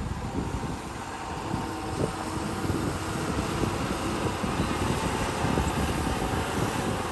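Heavy truck engine running steadily, with wind noise on the microphone.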